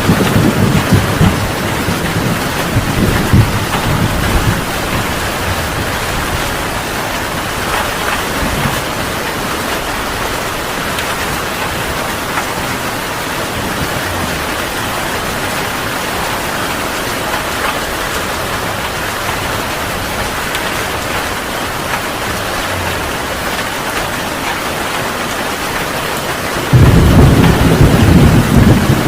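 Heavy rain pouring steadily, with thunder: a low rumble in the first few seconds that dies away, then a loud rumble of thunder breaking in suddenly near the end.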